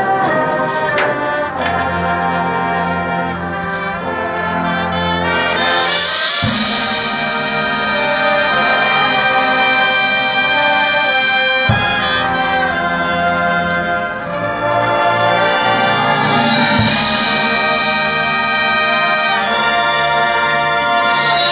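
High school marching band playing its field show: brass holding full, sustained chords over percussion. Bright crashes come about a third of the way in, about three-quarters in and at the end, with a few sharp deep drum hits between them.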